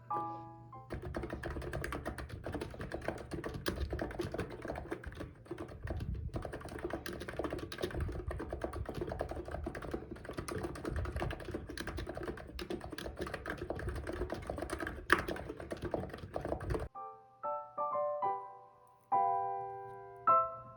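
Cox Endeavor electro-capacitive keyboard with 50 g switches being typed on quickly and continuously, starting about a second in and stopping a few seconds before the end. Soft piano music plays before the typing starts and again after it stops.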